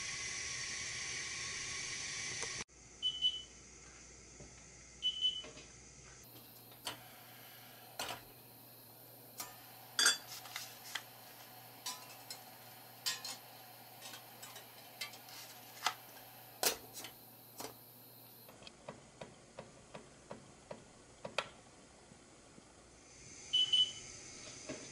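A steady hiss of water boiling and steaming for the first two or three seconds, then scattered clinks and knocks of a stainless steel steamer pot, basket and lid being handled. Short high electronic beeps sound twice early on and once near the end.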